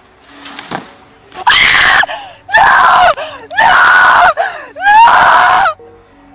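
A person screaming in alarm, four loud high shrieks about a second apart. The shrieks are loud enough to distort.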